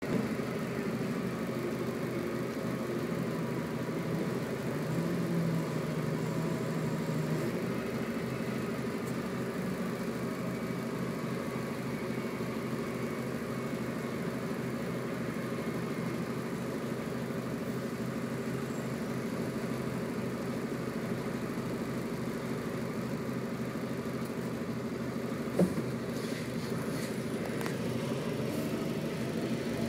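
Garbage truck engine running steadily, with one sharp click about 25 seconds in.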